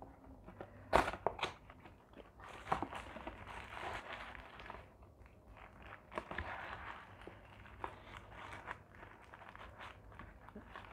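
Paper food wrapping and a cardboard takeaway box being handled: rustling and crinkling paper with a few sharp taps and clicks, the loudest a pair about a second in.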